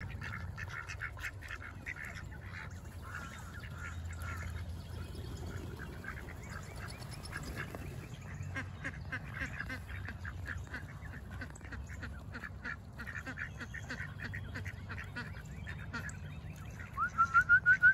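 A flock of ducks and geese feeding on scattered grain, with soft quacking, chattering and pecking throughout. Near the end a rapid run of loud honking calls, about five a second.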